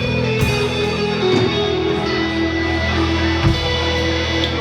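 Live band music led by guitar over a bass line, with occasional percussive hits.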